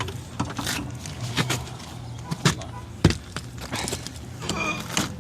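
Scattered metal clicks and scrapes of a nut driver backing out 5/16 sheet-metal screws on an air-conditioner condenser, over a steady low hum.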